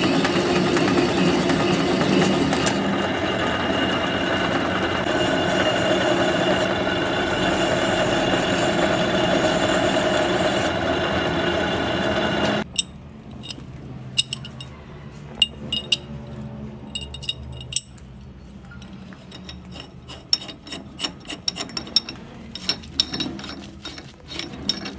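A metal lathe running and cutting iron bar, a steady loud machining noise that cuts off suddenly about halfway through. After that, scattered metal clicks and clinks as tools and parts are handled.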